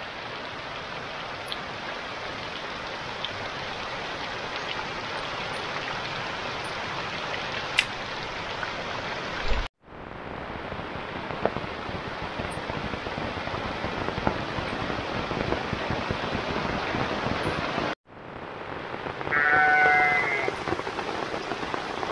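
Heavy rain falling steadily, with one wavering sheep bleat lasting about a second near the end.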